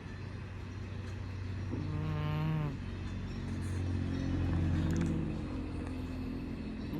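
Sleeping cat snoring: a pitched, wavering snore about two seconds in and a fainter one around four and a half seconds, over a steady low hum.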